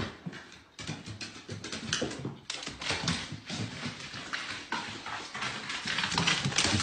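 A small animal's feet clattering quickly and unevenly on wooden stairs and a hard floor, many short taps a second.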